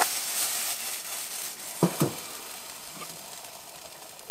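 Water sizzling on a hot surface: a hiss that slowly fades, with two light knocks about two seconds in.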